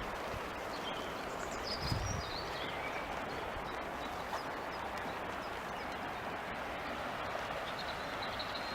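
Steady rushing of a flowing river, with a few faint bird chirps in the first couple of seconds and a brief low thump about two seconds in.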